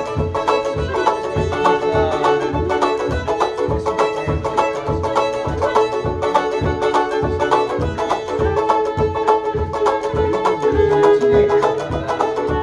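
A fiddle and a banjo playing a tune together, the fiddle's bowed melody over the banjo's plucked notes, with a steady low beat underneath.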